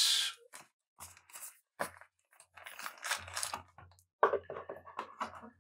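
Foil booster packs of trading cards and their cardboard box being handled, crinkling and rustling in short irregular bursts with a few light knocks.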